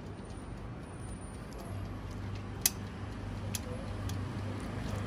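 Steady low outdoor rumble, like distant traffic, with one sharp click a little past halfway through and a fainter tick about a second later.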